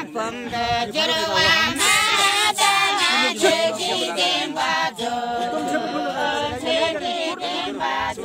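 A mixed group of men and women singing a folk song together without accompaniment, in a chorus of many voices, with a regular beat about twice a second.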